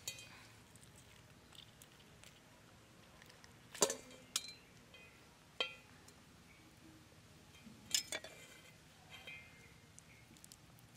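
Scattered light clinks and taps on a stainless steel bowl as meat and bits of bone are pulled from a charred grilled chicken and dropped into it, the sharpest knocks about four and eight seconds in.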